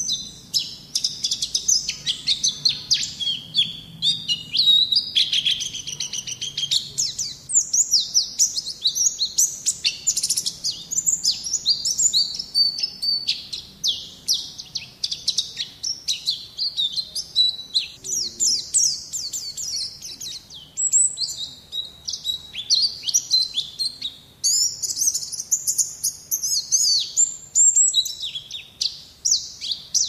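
White-eye (Zosterops, 'pleci') singing: a fast, nearly unbroken stream of high twittering chirps and trills, with only brief pauses.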